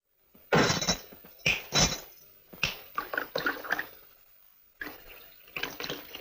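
Drinking glasses clinking, a series of sharp ringing strikes in irregular clusters.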